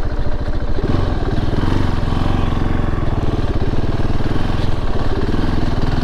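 KTM 690 Enduro R's single-cylinder four-stroke engine running steadily under way, its note changing about a second in.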